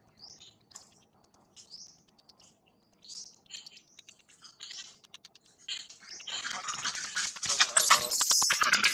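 Infant long-tailed macaque giving short, high squeaks, then from about six seconds in a loud, dense stretch of shrill screaming mixed with scuffling. These are distress cries of a baby being denied the nipple by its mother.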